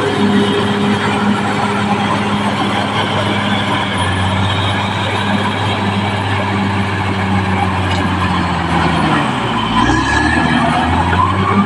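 Caterpillar D6R crawler bulldozer's diesel engine running steadily under a hum of machinery noise. About nine seconds in the engine note sags sharply, then climbs back up near the end.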